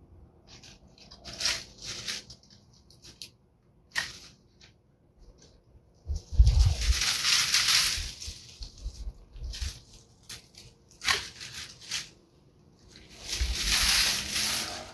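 Long-handled loppers snipping dry rose canes with a few sharp clicks, and cut thorny branches and dry leaves rustling and crackling as they are pulled out and gathered up, loudest about six to eight seconds in and again near the end.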